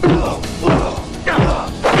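Film fight sound effects: punches and blows landing in quick succession, about four hits in two seconds, over action score music.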